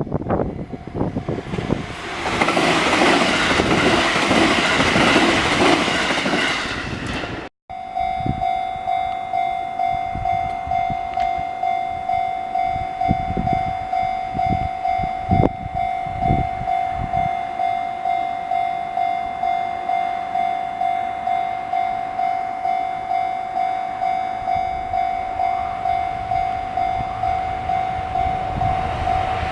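A train passing over a railway level crossing, a loud rush of running noise with a squeal in it, cut off abruptly about seven seconds in. Then a Japanese level-crossing alarm ringing its steady electronic tone about twice a second, with a few low rumbles in the middle.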